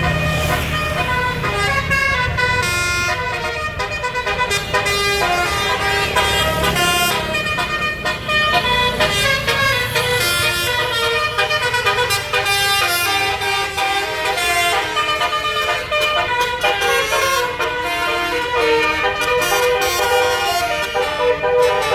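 Tour bus's multi-trumpet 'telolet basuri' air horn playing a tune of quick, stepped notes, several trumpets sounding together. A bus engine rumbles underneath for the first several seconds, then fades.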